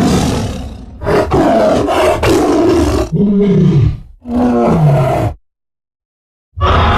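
A string of edited creature roars and growls for a large dinosaur, mixed from film monster sounds and big cat roars: a harsh roar, then several shorter bellowing calls, two of them swooping up and down in pitch. Dead silence after the last call, until a new roar bursts in near the end.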